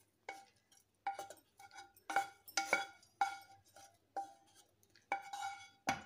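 A wooden spatula scraping and knocking against a metal pan, about a dozen irregular clinks, each with a short metallic ring, as fried shallots and oil are pushed out into a steel grinder jar.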